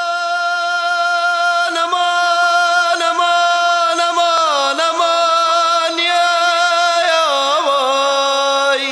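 Music: a male voice singing long held notes in a Middle Eastern style, with ornamented bends in pitch around the middle and again near the end.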